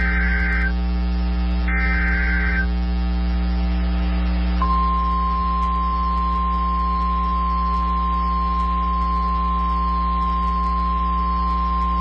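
NOAA Weather Radio alert signals: the last two bursts of the SAME digital header, each a harsh warbling data screech lasting about a second, a second apart. After a short gap, the steady single-pitch 1050 Hz warning alarm tone comes in about four and a half seconds in and holds, announcing a warning message. A constant electrical hum runs underneath.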